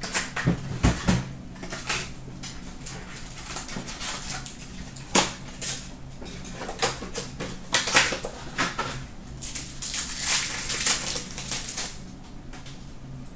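Trading-card packs and their cardboard box being handled and opened by hand: irregular crinkling and rustling of the foil wrappers and cardboard, with small sharp clicks and taps as packs are set down on the glass counter.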